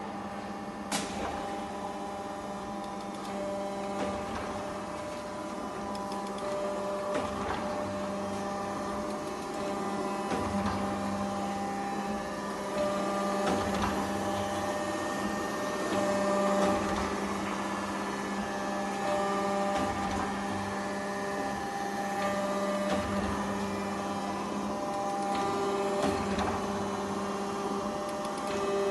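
7M430 hydraulic slotting machine running: its hydraulic drive gives a steady mechanical hum with a strong low tone and overtones, and faint knocks come about every three seconds.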